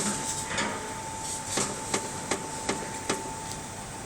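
A series of sharp knocks, about two to three a second, from the left tie rod end of a Ford Focus 3's steering rack as it is rocked by hand: play in the rack, the faulty knock that also sounds in the steering when driving on gravel. A faint steady tone runs underneath.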